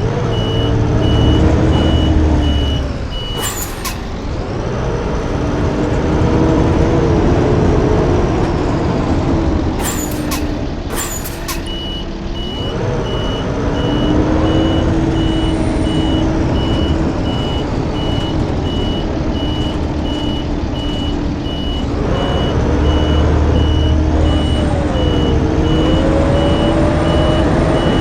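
Blue Bird school bus running, its engine rising and falling in pitch as it speeds up and changes gear, with a steady high-pitched tone over most of it. A few sharp clicks or hisses, about three and a half, ten and eleven seconds in.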